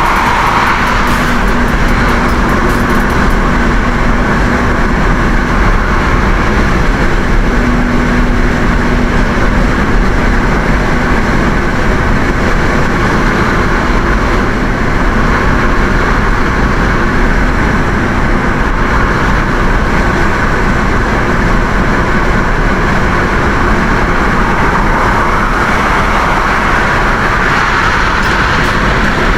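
Steady, loud rush of wind and tyre noise from a car driving at highway speed with a window open.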